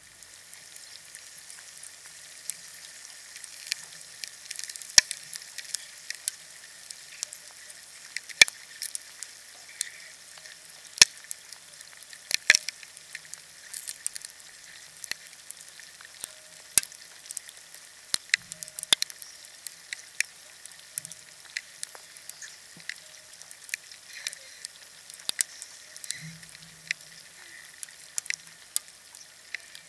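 Contact microphones submerged in water pick up ice freezing and defrosting: a faint steady hiss full of irregular crackles and sharp pops, with a few much louder clicks scattered through, the sound in real time.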